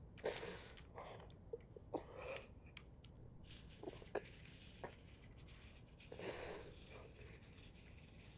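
Quiet room with a few faint breaths, the clearest just after the start and another near the end, and scattered small clicks and rustles.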